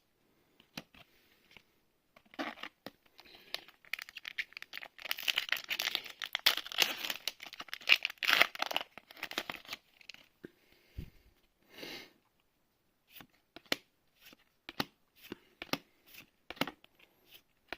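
A plastic booster pack wrapper of Magic: The Gathering cards torn open and crinkled for several seconds. It is followed by a scattering of short light clicks as the cards are handled and flipped through.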